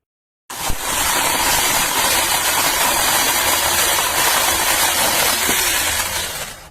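Cordless brushless mini electric chainsaw running at full speed with a steady whine and chain noise. It starts abruptly about half a second in and dies away near the end.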